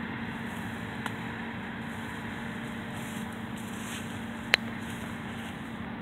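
John Deere S670 combine harvester running in the field: a steady drone with a constant low hum. A light click about a second in and a sharp click about four and a half seconds in.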